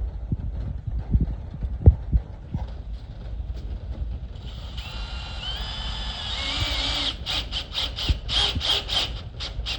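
Power drill driving drywall screws at an angle through a PVC electrical box into the stud. A few knocks come first as the screw is set, then the motor whine steps up in pitch about halfway in and turns into a rapid pulsing over the last few seconds.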